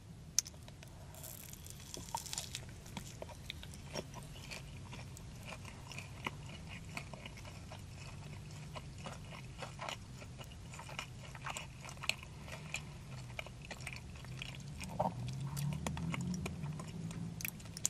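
A person biting into and chewing a sauce-covered buffalo chicken tender with the mouth close to the microphone: soft, wet chewing with small clicks rather than a crisp crunch.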